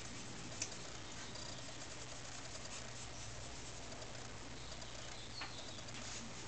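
Quiet room tone: a steady low hum and hiss, with a few faint scratches, a click about half a second in, and a couple of brief high chirps.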